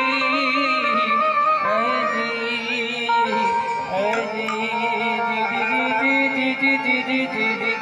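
Gujarati devotional bhajan music between sung lines: a harmonium plays a melody of held notes that step from pitch to pitch.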